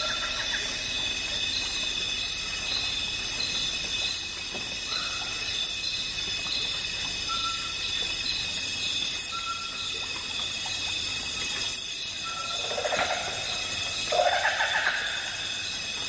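Natural forest ambience: a steady high insect drone with a rhythmic high buzz pulsing through it, short repeated whistled bird notes every couple of seconds, and a louder call of a few notes near the end.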